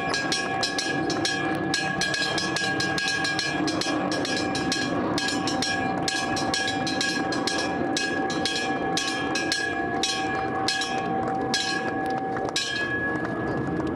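The stock-exchange opening bell ringing continuously with rapid, evenly spaced strokes, several a second, over a sustained ringing tone. It cuts off abruptly near the end, with applause around it.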